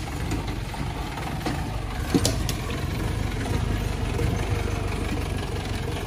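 A jeep's engine running slowly at low revs as the jeep crawls down a rocky stone track, with a couple of sharp knocks about two seconds in.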